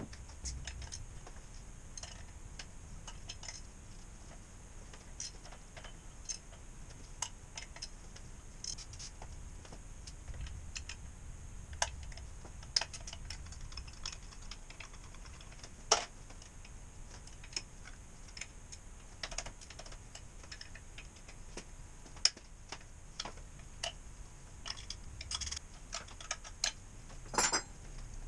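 Scattered light clicks and small knocks of tools and parts being handled at the front of a partly stripped diesel engine during teardown, with a few sharper knocks about midway and a quick cluster near the end.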